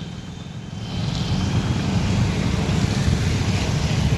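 Street traffic noise: a steady low rumble of passing vehicles, louder from about a second in.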